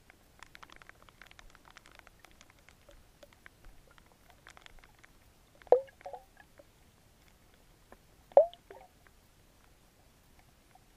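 Underwater sound of groundbait grains (corn, hemp, wheat) sinking through the water: a patter of faint ticks, then two louder plopping knocks with a short falling pitch, about two and a half seconds apart.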